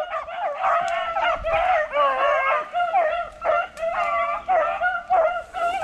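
A pack of beagles baying on a rabbit's scent trail, several hounds calling at once in overlapping, continuous cries.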